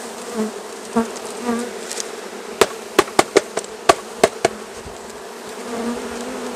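Honeybees buzzing steadily around an open hive. In the middle comes a quick run of about eight sharp wooden knocks as the emptied package box is tapped against the hive to shake the last bees out.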